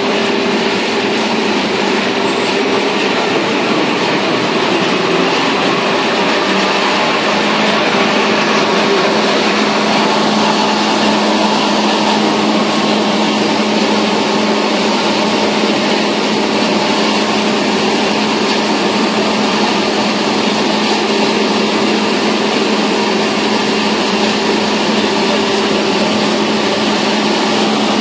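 KFQ1300-2000 high-speed paper slitting and rewinding machine running: a loud, steady mechanical whir with a steady hum, a second lower hum coming in about seven seconds in.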